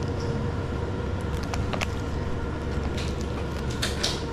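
Steady low hum of a convenience store's refrigerated display cases, with a few brief light clicks and crinkles from a plastic sandwich pack being handled.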